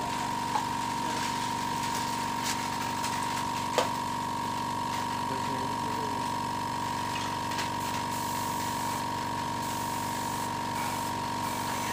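Air compressor running steadily, a constant drone with a high whine, supplying the spray gun's air hose for clear-coating. Two short sharp knocks come through, about half a second and about four seconds in.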